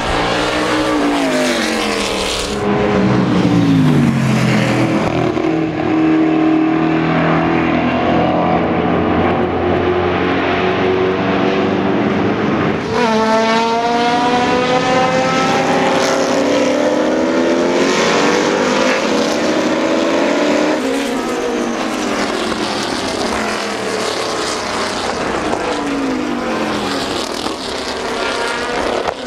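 Lola T70 Mk3B race cars' 5-litre Chevrolet V8 engines running hard as the cars pass at racing speed. The engine note falls as they go by, and about halfway through it climbs sharply as the cars accelerate out of a corner.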